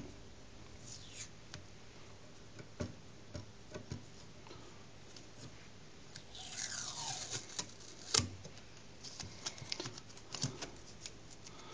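Masking tape being peeled off thin wood strips wrapped around a pool cue butt, with small handling clicks and ticks. A longer crackly rasp of tape pulling away comes about six seconds in, then a sharp click and a run of quick ticks.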